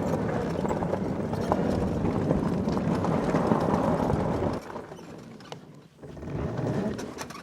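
ATV engine running with a steady rumble that cuts off sharply about four and a half seconds in, followed by a shorter, quieter swell of noise.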